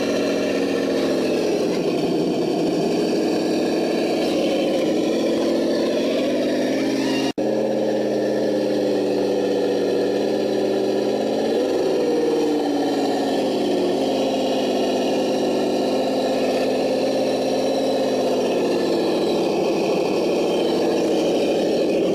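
Synthetic engine sound from an ESS-One sound kit, played through the onboard speaker of a Vatera K5 Blazer RC crawler: a steady idle that rises in pitch and falls back a few times as the throttle is worked. The sound cuts out for an instant about seven seconds in.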